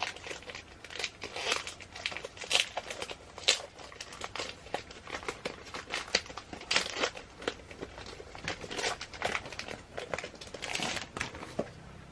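Plastic packaging crinkling as it is handled and pulled open, in dense irregular crackles with a few sharper snaps. It stops shortly before the end.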